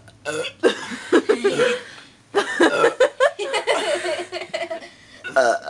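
People laughing and giggling in a string of short bursts, mixed with burps.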